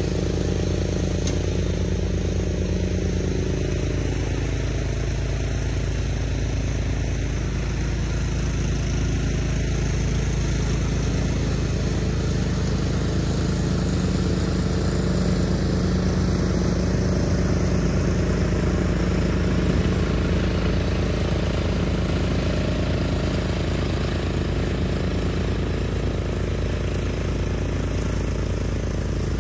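Cub Cadet 760 ES 33-inch walk-behind wide-area mower running steadily while cutting grass. It gets a little louder around the middle as it passes close, then eases off as it moves away across the lawn.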